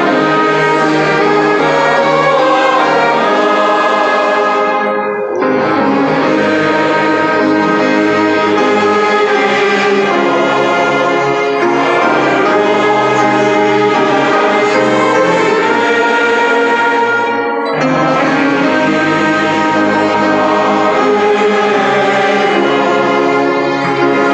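Church orchestra of strings and winds playing a piece, with brass instruments prominent. The music breaks off briefly twice, about five seconds in and again near eighteen seconds, between phrases.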